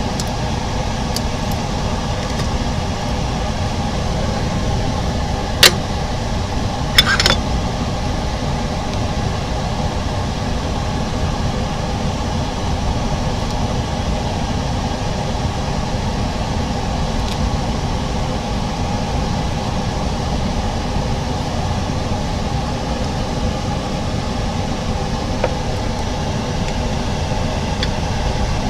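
Steady machine hum, like a running fan. It is broken by a sharp click about six seconds in and a second click with a brief scrape about a second later.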